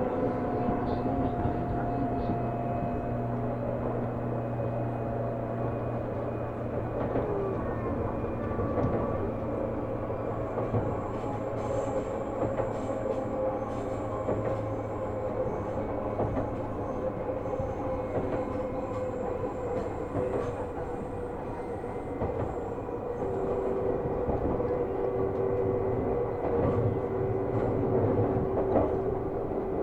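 Seibu New 2000-series electric commuter train running, with the steady rumble of wheels on rail and a whine from the motors and gears, one tone of which slowly sinks in pitch.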